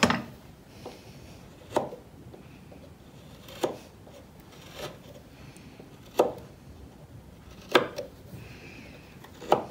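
Carving knife whittling the rounded end of a wooden flagpole knob: about seven short, sharp slicing cuts, one every second and a half or so.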